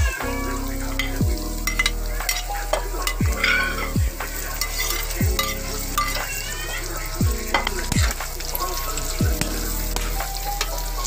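Stir-frying in a wok: food sizzling in hot oil while a spatula stirs it, with frequent sharp scrapes and knocks against the pan.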